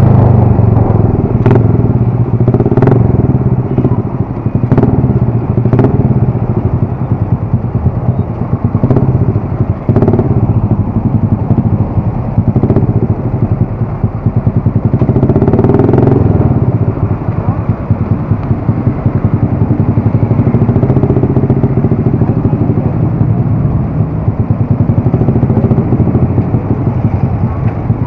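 Motorcycle engine running steadily under way, with scattered sharp clicks and knocks, more of them in the first half.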